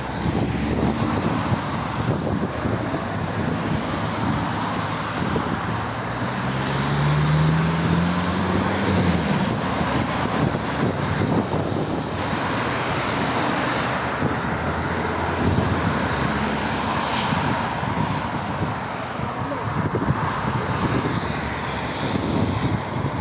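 Road traffic on a wet road: a steady rush of tyre noise and engines, with one engine's note rising in pitch for about two seconds, seven seconds in.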